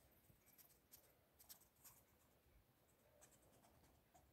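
Near silence with faint, scattered scratchy ticks: a squirrel's claws catching on clothing and couch fabric as it clambers over a lap.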